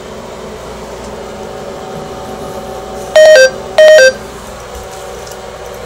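Low-battery warning from the recording device: two electronic beeps about half a second apart, each a higher note stepping down to a lower one. A steady background noise runs underneath.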